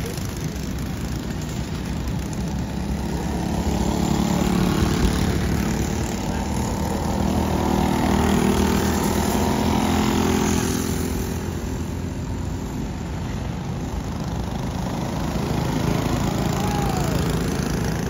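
Racing kart engines running at speed on track. The sound swells as karts pass close by, fades about two-thirds of the way through, and builds again as a kart comes past near the end.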